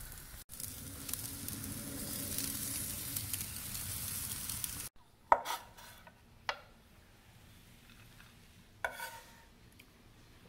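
Artichokes sizzling on a hot barbecue grill, a steady hiss that cuts off about five seconds in. Then a chef's knife knocks three times on a wooden cutting board as chopped parsley and garlic are worked and scraped up.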